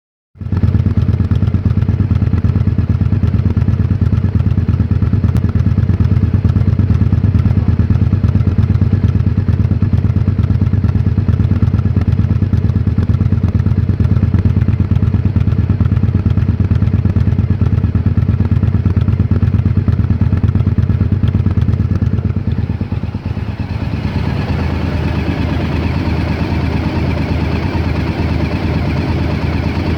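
Honda XL1000V Varadero's 996 cc V-twin engine idling roughly, a strange idle that the owner is seeking help to diagnose. Around three-quarters of the way through, the sound turns a little quieter and brighter.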